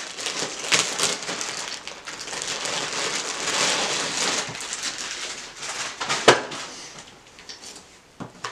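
Clear plastic bag crinkling as it is torn open and handled. About six seconds in there is a single sharp knock, after which only quieter rustling remains.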